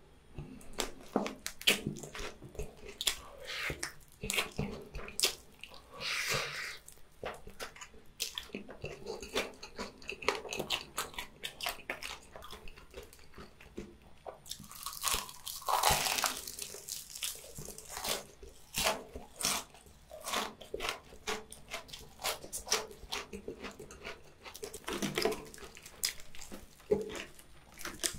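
Close-miked eating sounds: wet chewing and mouth smacks on fried chicken and spicy rice cakes. About halfway through comes a loud, crackly crunch of a bite into a crispy fried chicken drumstick.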